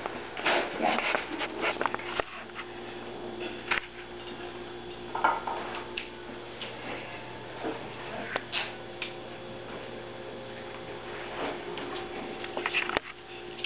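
Puppies moving about on a paper sheet: scattered soft scuffs, taps and clicks, over a steady low hum in the room.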